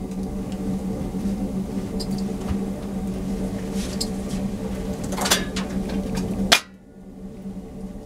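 Wood fire crackling in a barrel stove over a steady low hum, with a few knocks as a cup is taken off the shelf. A sharp knock past the middle is the loudest sound, and the background cuts off suddenly right after it.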